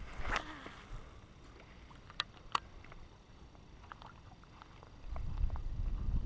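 Quiet handling of a fishing rod and baitcasting reel, with two sharp clicks about two seconds in and a few small ticks after them. From about five seconds a low wind rumble on the microphone comes in.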